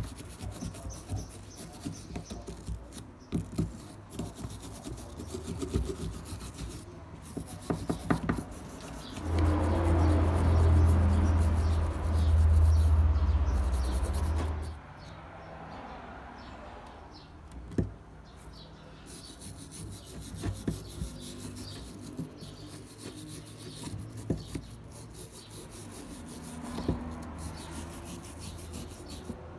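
Flat steel scraper being worked over a rusty hand punch, scraping off rust in many short, uneven scratchy strokes. Midway a louder, deeper rubbing lasts about five seconds before the lighter scraping resumes.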